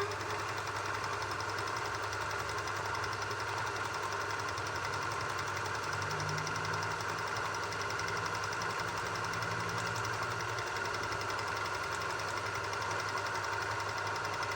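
Wertheim household sewing machine running steadily at speed, sewing a pattern stitch with an even mechanical clatter; it runs smoothly, working as it should.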